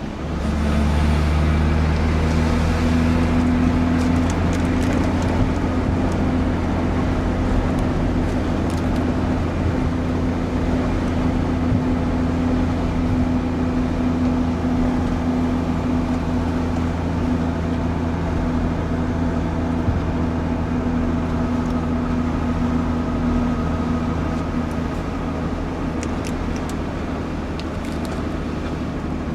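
A heavy truck's engine runs steadily as the truck drives, a low, even drone that dips briefly at the very start.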